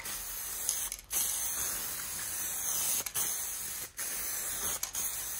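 Aerosol spray can of two-component polyurethane car paint spraying a steady hiss onto a car roof. It sprays in several spells broken by brief pauses as the nozzle is released and pressed again.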